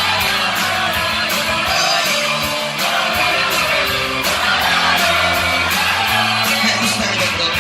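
Live rock band playing an instrumental passage: guitar strumming over bass notes and a steady beat.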